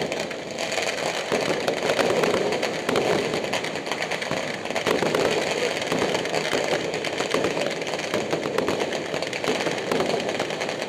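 Many firecrackers and fireworks going off at once, a dense, unbroken crackle of overlapping pops and bangs. Most of it comes from firecrackers set off on the ground rather than from aerial shells.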